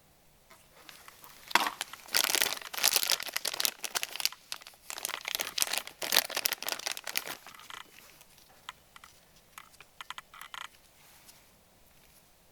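Packaging crinkling and tearing as a new brake wheel cylinder is unwrapped: several seconds of rustling in bursts, thinning out to a few light clicks and rustles.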